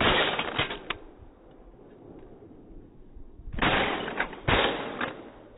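Shotgun shots fired at a flock of ducks overhead: one right at the start, then two more about a second apart later on. Each shot trails off over about half a second.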